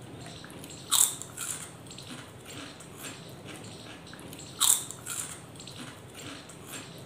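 Two loud crunchy bites into fried snacks (chips and fries), about a second in and again near the five-second mark. Each is followed by a few softer crunches of chewing.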